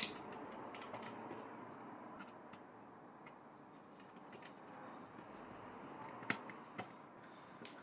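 Faint scattered clicks and ticks of a screwdriver and ring terminal on the earth screw of a spindle power supply's perforated metal case, as the earth wire is screwed down. Two slightly louder clicks come about six seconds in, over a faint steady hiss.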